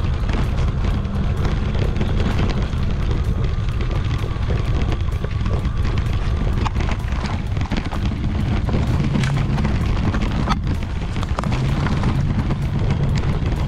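Heavy wind rumble and trail vibration on an e-bike-mounted action camera riding a bumpy dirt forest track, with a few sharp knocks from the bike.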